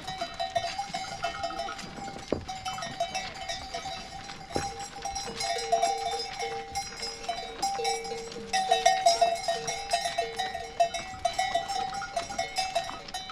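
Many livestock bells on a moving flock of sheep clanking and jingling all at once, continuously. The clanking is busiest in the second half, with a couple of sharp knocks.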